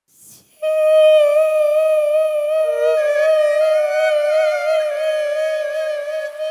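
A woman singing a Mandarin ballad live, holding one long note with vibrato that starts about half a second in, over soft accompaniment.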